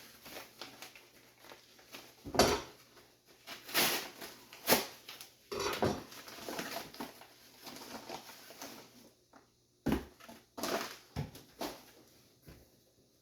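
A mailed package being opened by hand: irregular rustling, tearing and crinkling of packaging, with several sharp crackles.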